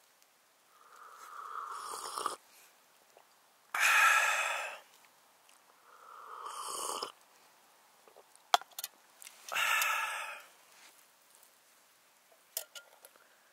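A person slurping hot coffee from a cup, each slurp swelling briefly and stopping, then letting out a loud breathy sigh of satisfaction; this happens twice. A few light clicks come near the end.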